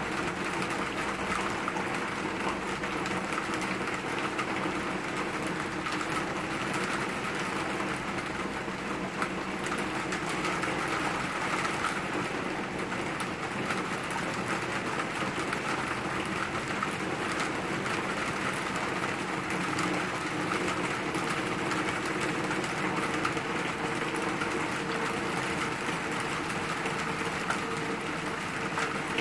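Steady summer rain falling on trees and bushes: an even hiss of many drops, speckled with close drip ticks.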